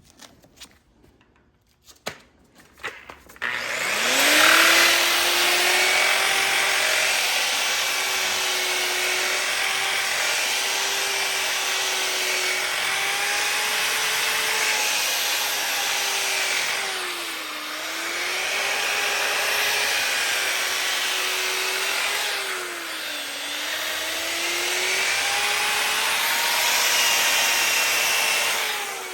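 A few handling clicks, then the Bauer variable-speed grinder spins up about three and a half seconds in and runs with a steady whine as its sanding pad grinds against a cast iron skillet. Its pitch sags twice under load, and it starts to wind down at the end.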